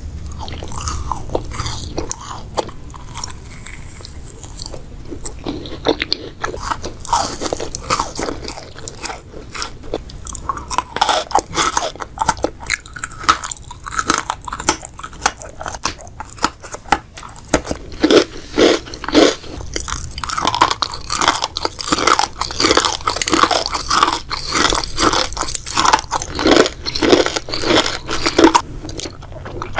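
Close-miked eating sounds: a bite into a pink macaron, then biting and crisp, crunchy chewing of pink sweets and snacks. The crunching grows louder and busier in the second half.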